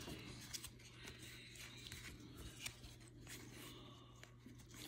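Faint rustling and a few light clicks of Topps baseball cards being slid one behind another in the hand, over a low steady hum.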